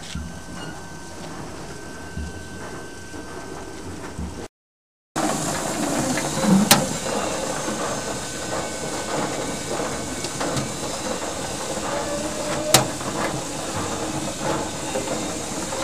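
Rhizome washing and slicing machine running with a steady hiss, quieter at first and louder after a brief break about four and a half seconds in, with two sharp clicks in the louder part.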